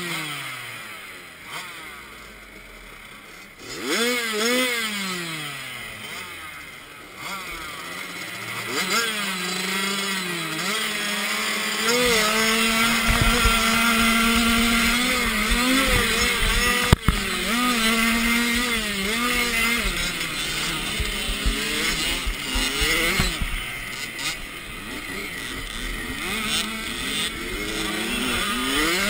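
Small 65cc two-stroke motocross bike engine revving up and down again and again as the rider accelerates, shifts and rolls off, with wind rumble on the chest-mounted camera. There is one sharp knock about halfway through.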